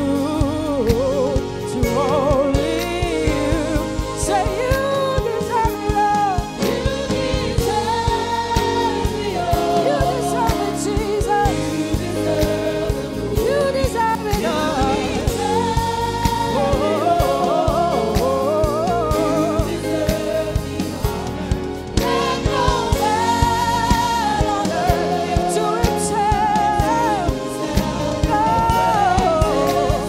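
Live gospel worship music: a woman sings the lead melody over a band.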